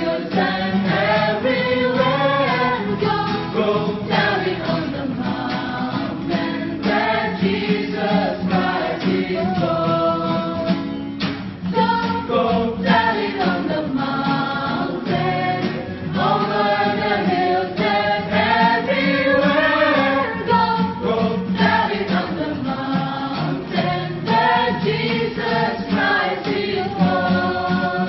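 A vocal group singing together, several voices in harmony, with the melody rising and falling across held notes.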